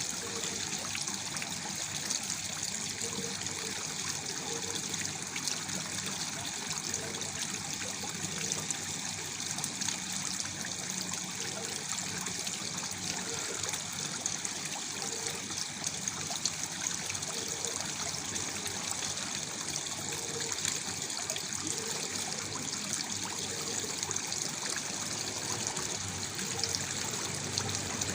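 Waterfall splashing steadily into a pool, an even, unbroken rush of falling water with a bright, hissing top.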